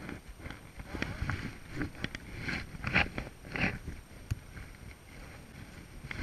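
Water splashing in irregular bursts as a trout is scooped into a rubber landing net and thrashes at the surface, with one sharp knock a little after four seconds in.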